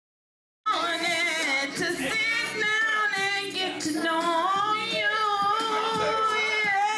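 Digital silence for about half a second, then a song comes in suddenly: a woman singing long, gliding notes over music.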